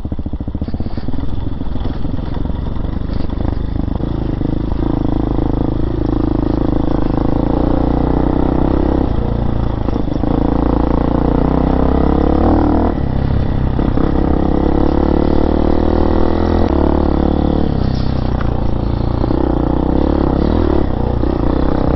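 RPS Hawk DLX 250's fuel-injected, air-cooled four-stroke 230cc engine running as the dirt bike is ridden along a rough trail, with the throttle opening and closing several times. Clatter from the bike over the bumps.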